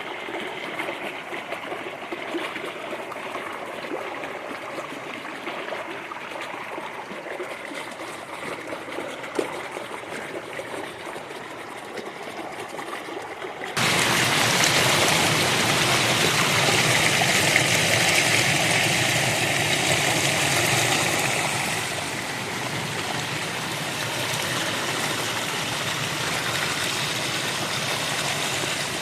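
Small creek babbling and trickling over stones. About fourteen seconds in it changes abruptly to a louder, fuller rush of running water, which eases a little about eight seconds later.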